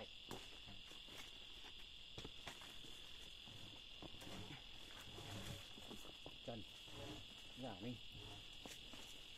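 Faint, steady high-pitched buzzing of insects.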